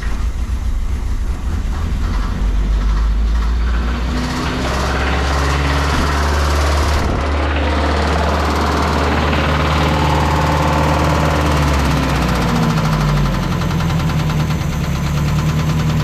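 1986 Mazda B2000's carbureted 2.0-litre four-cylinder engine running just after a start, on a freshly fitted carburetor whose idle is not yet set right. Engine speed wanders up a little a few seconds in and again past the middle, then settles lower near the end.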